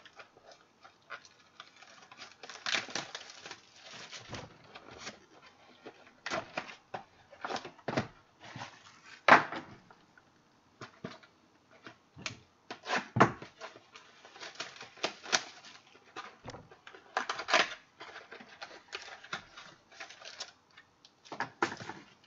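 Football trading card packs and cards being handled: irregular clicks, taps and short rustles as packs are opened and cards are slid and flicked. The sharpest clicks come about nine seconds in and again about thirteen seconds in.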